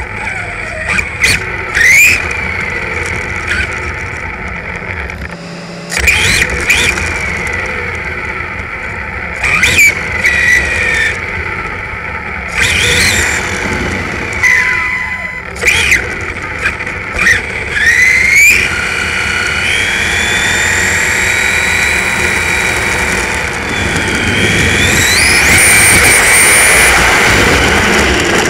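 The electric motor and drivetrain of a 1/10-scale RC car, whining as it drives and rising and falling in pitch with the throttle, with sharp knocks now and then. Near the end the whine climbs steeply as the car speeds up.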